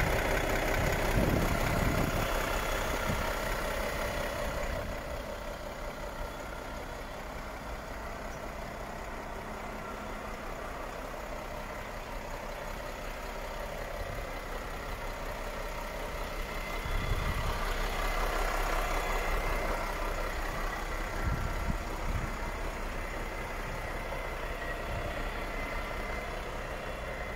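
Volvo FH 540 truck's 13-litre straight-six diesel idling steadily, with a few brief louder low rumbles.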